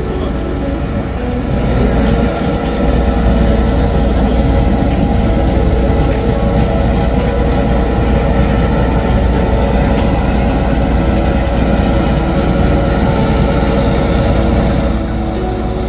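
Steady low rumble of a moving vehicle, louder from about two seconds in until near the end.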